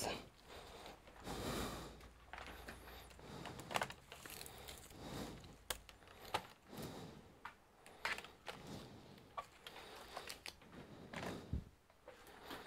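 Faint handling noise of a bench power supply's DC cable being moved over a laptop keyboard, with scattered light clicks and rustles.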